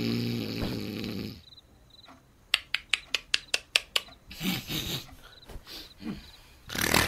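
A loud, rasping snore with a low pitched drone, ending about a second and a half in. Then a quick run of about eight sharp knocks, and short breathy noises later on.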